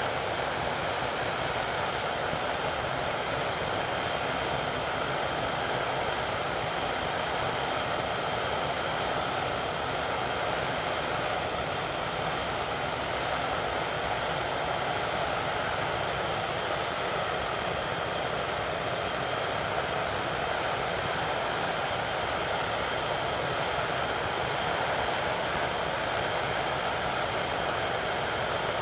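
English Electric Lightning's twin Rolls-Royce Avon turbojets running steadily on a ground run: an even jet rush with a thin high whine over it, holding one setting throughout.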